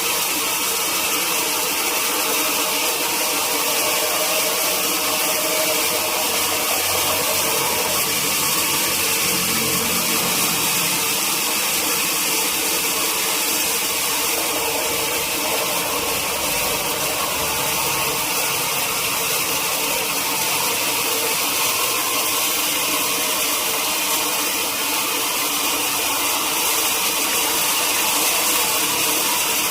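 Sawmill machinery running steadily: a loud, even mechanical noise with a strong hiss and several held hums, unbroken throughout.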